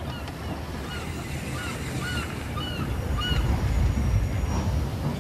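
Small birds chirping, about eight short rising-and-falling chirps in the first three seconds or so, over a steady low rumble that grows louder in the second half.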